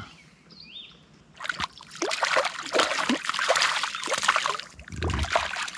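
A hooked brook trout thrashing and splashing at the water's surface beside a canoe as it is played in on a fly rod. The splashing starts about a second and a half in and goes on in irregular bursts for several seconds.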